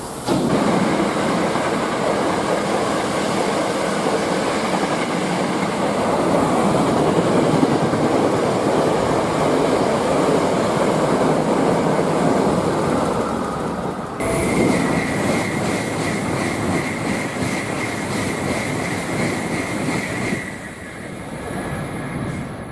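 A train passing close by: a loud, steady rush and rumble of wheels on rail. About fourteen seconds in the sound shifts and a steady high squeal from the wheels joins it, dying away near the end.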